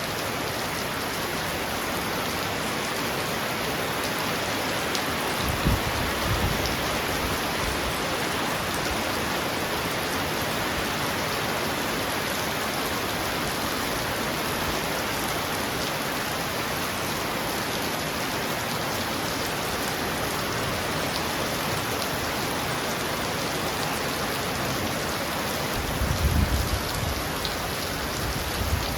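Heavy rain pounding on a roof: a steady, dense hiss of rain. Two short, low thumps come through it, about six seconds in and again near the end.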